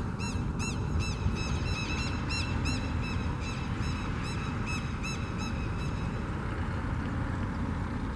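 Steady rumble of an Airbus A320's jet engines as the airliner taxis. Over it a bird calls in a quick run of short rising-and-falling chirps, about four a second, fading out around six seconds in.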